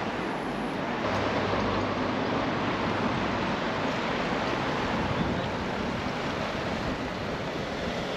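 Shallow river water running over a stony bed: a steady rushing hiss.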